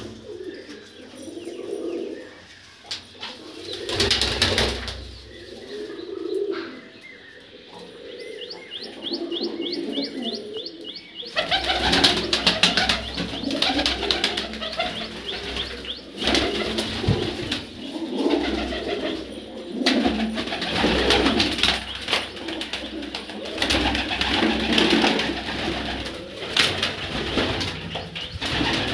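Punjabi desi highflyer pigeons cooing over and over. From about a third of the way in, louder rustling and scuffling joins the calls.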